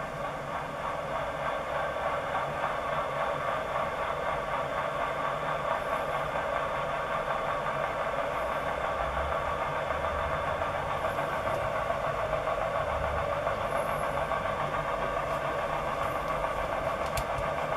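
MFOS Noise Toaster analogue synthesizer putting out a continuous chuffing hiss of filtered white noise, modulated by its LFO, which sounds like a steam locomotive.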